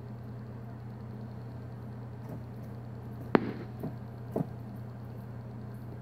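A black-and-white tegu eating minced meat and greens from a tray: one sharp snap of its jaws a little past halfway, then two softer wet chomps, over a steady low hum.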